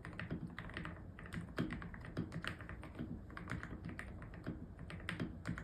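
Typing on a custom-built mechanical keyboard: a quick, uneven run of keystroke clicks, several a second.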